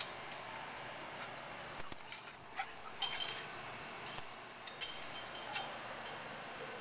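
A dog whining in short high notes a few times, mixed with brief metallic clinks and jingles.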